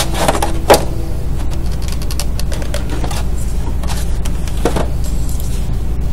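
A plastic triangular architect's scale being handled on a drafting board: a sharp click just under a second in as it is picked up, and a lighter knock later as it is laid down on the paper, over a steady low hum.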